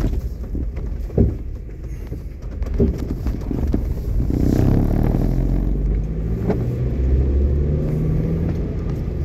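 Car engine and road noise heard from inside the cabin while driving, growing louder about four seconds in as the car pulls away and picks up speed. Two brief knocks in the first three seconds.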